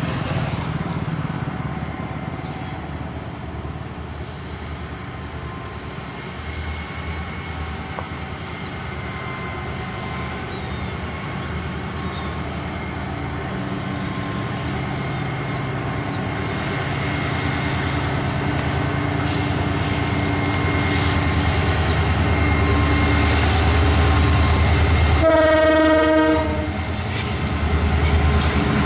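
Twin WDG4 EMD diesel locomotives hauling a freight train, their two-stroke engines running under throttle and growing steadily louder as the train accelerates. A single short horn blast sounds near the end.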